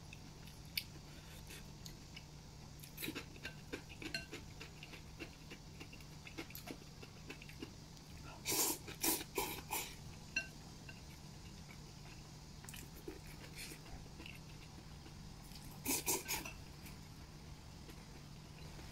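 Someone eating noodles with chopsticks: small clicks of chopsticks against a porcelain bowl and chewing, with two loud runs of slurping, about nine seconds in and again about sixteen seconds in.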